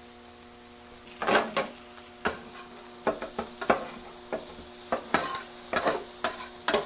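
Metal griddle spatulas scraping and clacking on a steel flattop as diced onions are chopped and pushed around, with frequent irregular strikes over a sizzle that sets in about a second in. A faint steady hum lies underneath.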